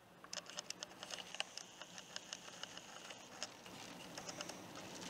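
Faint, irregular pattering of raindrops striking close to the camera's microphone, over a hiss of storm wind and surf that grows steadily louder.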